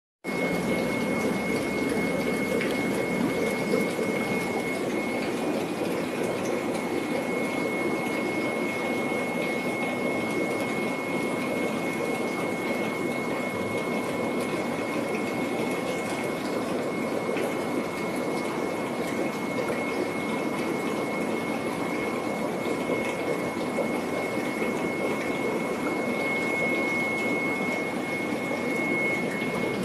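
Steady rushing noise of a water pump and running water, with a thin steady high whine over it.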